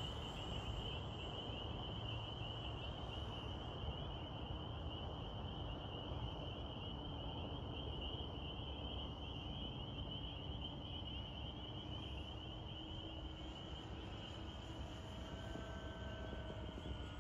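Faint, distant hum of a remote-control B-25 Mitchell's twin electric motors and three-bladed propellers as it flies, drifting slowly in pitch, under a rough outdoor background noise and a steady high-pitched buzz.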